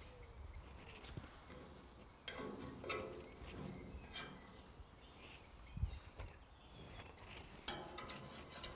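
Faint outdoor background noise with a few soft clinks and knocks scattered through it.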